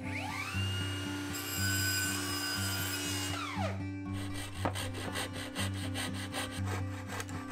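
A saw cutting through a wooden strip, its strokes quickening into a rapid, even rhythm about halfway through, over quiet acoustic background music.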